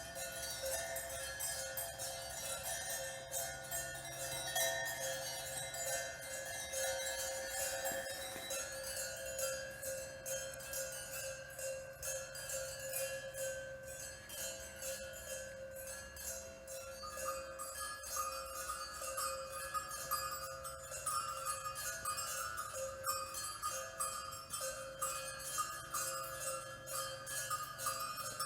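Steady ringing bell-like tones under a dense, continuous tinkling of tiny clicks. A further ringing tone joins about halfway through.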